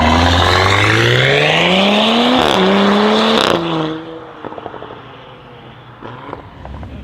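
Tuned Audi RS6 C8's twin-turbo V8 with Akrapovic exhaust accelerating hard, its pitch climbing with a brief dip at a gear change about two and a half seconds in. The engine cuts off abruptly a little after three and a half seconds, followed by quieter exhaust crackles and pops.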